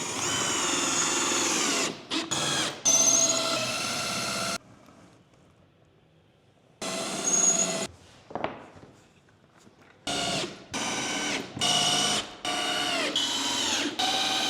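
Power drill driver driving screws into the SIPs-panel upstand, in repeated runs of a motor whine that rises in pitch as each run starts. The runs are about one to two seconds each and are broken by short pauses.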